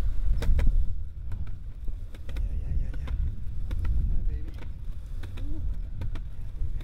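Large 6-inch longboard wheels rolling on a concrete path, a steady low rumble with sharp clicks, often in close pairs, as the wheels cross the joints in the concrete.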